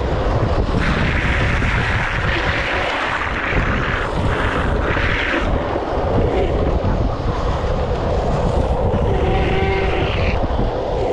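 Wind rushing over the microphone and longboard wheels rolling on asphalt at speed on a downhill run. Brighter hissing comes in several stretches in the first half, and a short pitched wheel squeal comes about nine seconds in, as the wheels slide.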